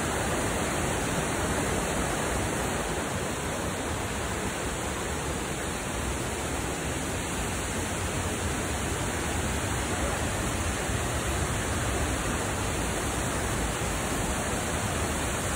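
Steady rush of white-water rapids, a fast river pouring over boulders.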